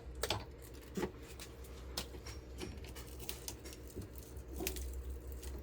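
Scattered light clicks and scrapes of a hand tool working at a small transformer's stacked laminations, trying to pry the layers apart, over a steady low hum.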